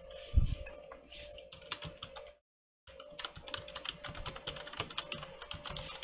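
Typing on a Logitech wireless keyboard with built-in touchpad: fast, uneven key clicks, with a low thump about half a second in.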